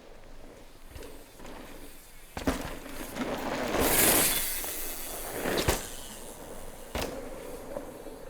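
A mountain bike ridden over a dirt jump. Tyres rush over dirt, swelling to the loudest point about four seconds in, with sharp knocks of the bike on the ground, one before the rush and two after.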